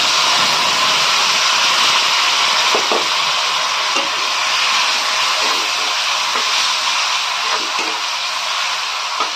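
Chopped tomatoes sizzling loudly in hot oil in a kadai: a steady, dense hiss that starts suddenly as they hit the oil and eases off only slightly. A few soft knocks of the spatula come through as they are stirred.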